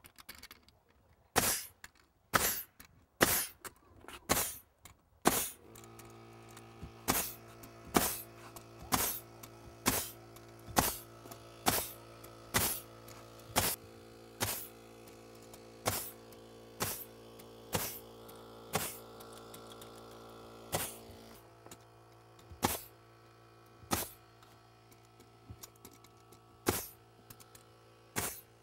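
Pneumatic nail gun firing nails through plywood subfloor sheathing into the joists, a sharp shot about once a second, spacing out toward the end. An air compressor hums steadily behind the shots from a few seconds in until about two-thirds of the way through, then cuts off.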